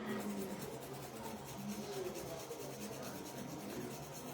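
Faint scratching and scraping of a sharp tool cleaning a phone's battery connector pins, over a low steady hum.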